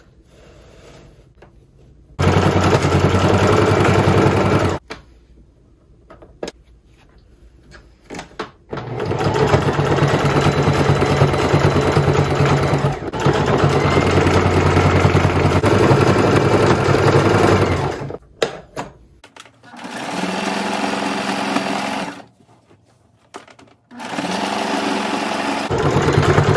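Singer Fashion Mate sewing machine stitching a seam along an elastic waistband, in four runs of a few seconds each with short pauses between them while the fabric is readjusted; the third run is quieter.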